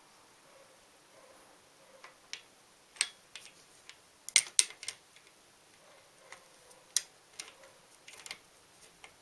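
Irregular sharp clicks and light taps from tools and bicycle parts being handled during bottom-bracket work, about a dozen, with the loudest pair about four and a half seconds in.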